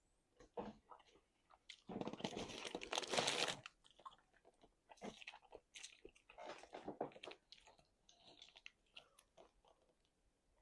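A person biting into and chewing crunchy food. A long crunching bite comes about two seconds in and is the loudest part, followed by scattered smaller crunches and chewing sounds.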